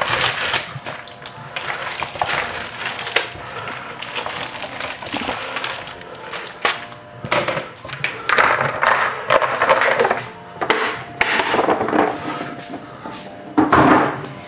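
Kitchen handling sounds at a counter: irregular rustling and scraping in bursts, with scattered sharp clicks and knocks.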